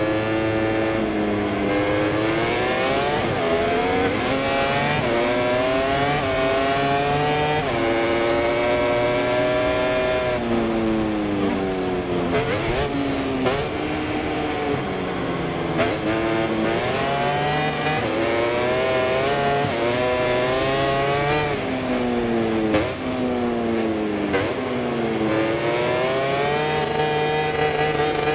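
MotoGP racing motorcycle engine at full race pace, heard from on board: the pitch climbs hard through the gears, dropping back a step at each upshift, then falls away in a run of quick downshifts with short throttle blips under braking for a corner, twice over before accelerating again.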